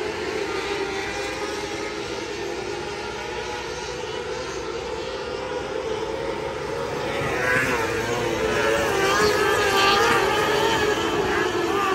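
A pack of 600cc micro sprint cars racing on a dirt oval, their high-revving motorcycle engines running together. The sound grows louder about two-thirds of the way in as cars come down the near straight, with pitches rising and falling as the drivers lift and get back on the throttle.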